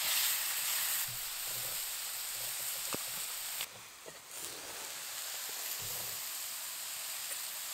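Ceps (porcini) frying in a cast iron pan, a steady sizzle and hiss as the moisture cooks out of them. The sizzle drops off briefly about four seconds in.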